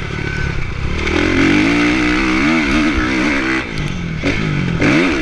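Kawasaki motocross bike's engine, heard close from the rider's chest, revving up and down in quick swings as the throttle is worked over the track, with a short drop in revs near the end.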